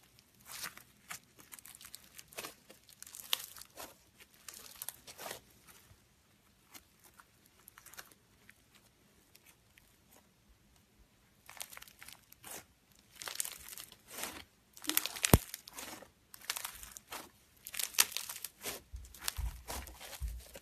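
Foam-bead slime (floam) being stretched, squeezed and kneaded by hand, the beads crackling and crunching in irregular bursts. The crackling thins out for a few seconds in the middle and comes denser and louder toward the end, with one sharp click about fifteen seconds in.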